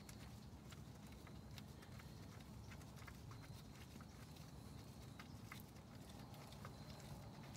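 Near silence with faint, scattered small metal clicks: a 10 mm socket being turned by hand to back a bolt out of a Toyota Camry's automatic transmission filter.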